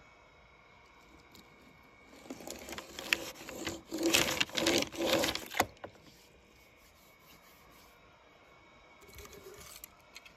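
Rough scraping and rubbing of a small die-cast toy car being worked by hand, starting about two seconds in, loudest in the middle with sharp clicks, and stopping suddenly after about three and a half seconds.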